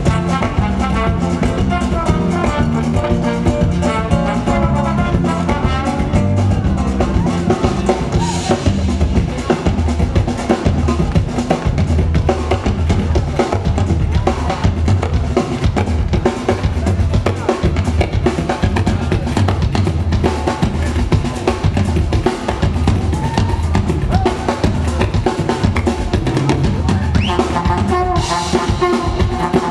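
Live samba-jazz band playing a choro, with the drum kit and percussion to the fore, including rimshots and rolls, over a bass line and guitar.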